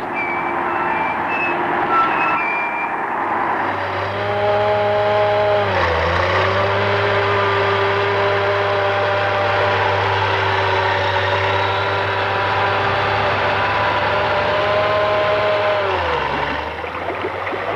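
Diesel earth-moving machinery running steadily, its engine note dipping briefly about six seconds in and again near the end.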